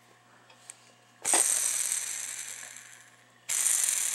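Freshly oiled steel wheelset from a prewar Lionel tinplate passenger car truck, spun by hand twice. Each spin starts suddenly and dies away over about two seconds. It is a spin test showing the wheels turn freely on the axle.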